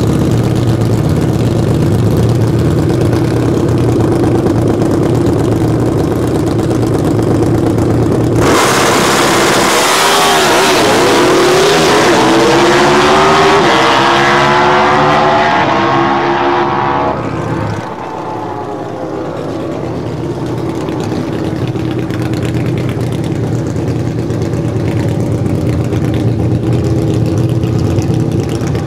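Harley-Davidson V-Rod Destroyer drag bike's V-twin engine idling steadily, then launching about eight seconds in: a loud full-throttle roar whose pitch climbs in steps through the gears as the bike pulls away. After an abrupt cut, another V-Rod drag bike's engine idles steadily.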